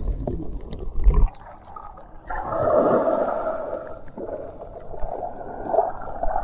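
Muffled low rumbling and clicking of water heard by a submerged camera, cutting off abruptly about a second in as it comes out of the water. Then small waves wash up a sand beach, swelling and easing.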